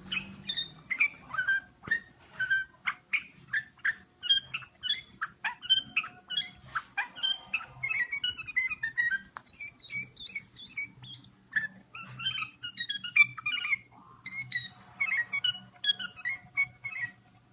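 A songbird singing a long, fast run of varied chirps and whistled notes with quick rising and falling glides, in phrases broken by brief pauses.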